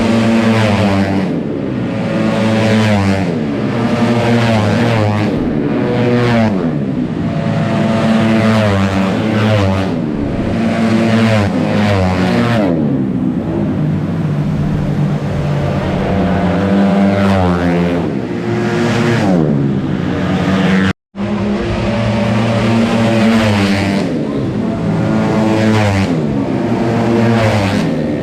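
Several tuned 155cc automatic racing scooters running hard, their engines rising and falling in pitch over and over as they pass, ease off and accelerate again. The sound cuts out for a split second about two-thirds of the way through.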